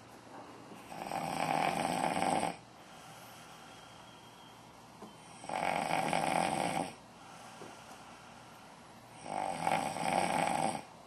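Snoring: three long snores about four seconds apart, with quiet breathing between them.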